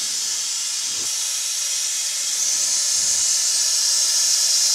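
Steady hiss of air rushing through a coolant vacuum-fill tool as it pulls vacuum on the Chevrolet Bolt EV's battery cooling system, growing a little louder about halfway through.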